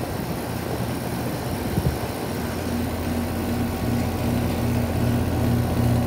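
Outdoor condensing unit of a 2017 Guardian 5-ton split-system air conditioner running. The condenser fan and compressor give a steady low hum, and a second, slightly wavering drone joins about halfway through.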